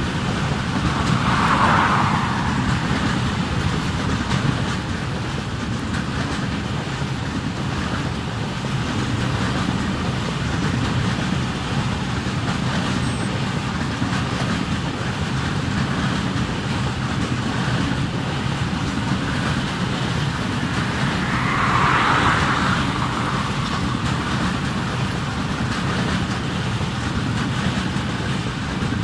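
Freight train's loaded coal wagons rolling past on the rails: a steady rumble of wheels on track that swells briefly twice, near the start and again about two-thirds through.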